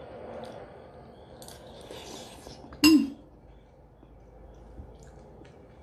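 A metal spoon clinking sharply once against a soup bowl about three seconds in, with a brief ring.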